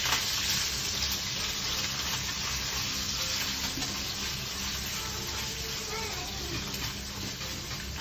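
Bacon sizzling in olive oil in a frying pan as it is stirred with chopsticks: a steady frying hiss.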